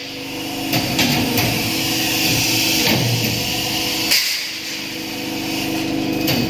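Workshop machinery running with a steady hum, with a few sharp metallic knocks.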